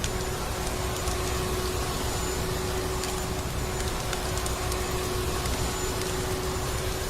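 Vacuum cleaner running steadily, a constant motor hum with one held tone over a steady rush of air, with scattered crackles of a wood fire mixed in.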